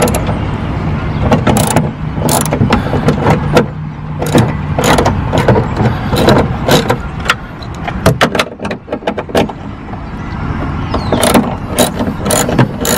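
A hand ratchet with a 10 mm socket clicking in short, uneven runs as it loosens the bolts holding a rear wing to a car's trunk lid. A steady low hum runs under it and fades out about four seconds in.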